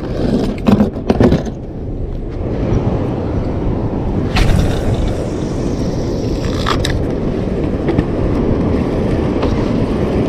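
Boat engine running steadily, a low rumble, with a few knocks and clatter in the first second or so and two sharp clicks later on.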